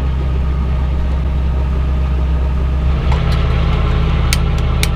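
Sailboat's inboard engine running steadily while motoring through flat calm water, its low hum shifting slightly about three seconds in, with a few sharp clicks near the end.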